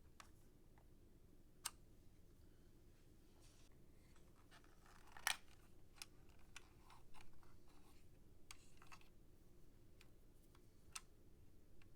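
Faint, scattered small clicks and ticks of hands handling things, with one sharper click about five seconds in and a little rustling a couple of seconds later.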